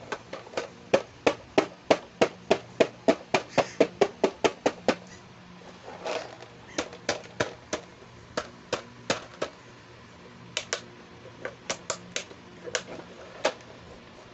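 Fingers tapping on a hard plastic toy doctor-kit carry case: a quick, even run of sharp taps, about four a second, for the first five seconds. A short scrape follows, then slower, irregular taps.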